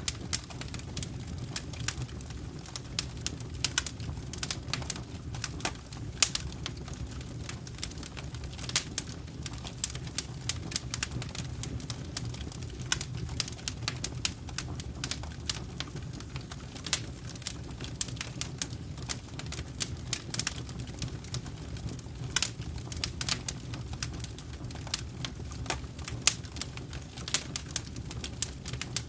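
Wood fire in a fireplace crackling, with frequent irregular sharp pops and snaps over a low, steady rumble of burning.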